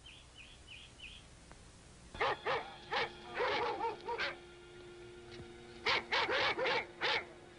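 Several leashed German shepherd dogs barking in quick bursts, starting about two seconds in, with a second flurry of barks near the end.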